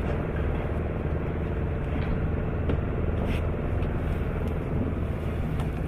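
Steady engine rumble with a low hum and a few faint clicks.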